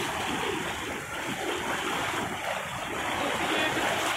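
Muddy floodwater rushing steadily over a road, with splashing from feet wading and dragging through the current.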